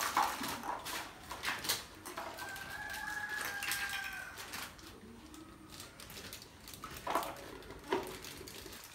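Plastic bags rustling and plastic toy pieces clicking as a kitchen playset is unwrapped, with a drawn-out high call lasting about two seconds in the middle.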